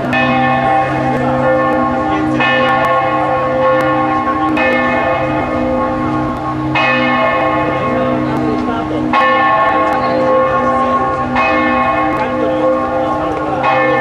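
Church bells of Florence Cathedral's bell tower, Giotto's Campanile, ringing loudly: a bell strikes about every two seconds, each stroke ringing on into the next over a steady low hum.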